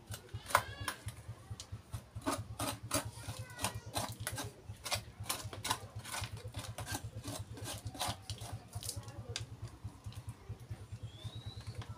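A small flat metal tool scraping and pressing potting soil around a coconut in a plastic pot: a quick series of gritty scratches and clicks, over a steady low hum.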